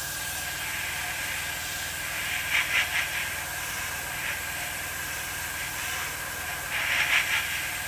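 Airbrush spraying paint at low air pressure, around 8 to 10 psi: a steady hiss that swells louder twice, about two and a half seconds in and again near the end, over a faint steady high tone.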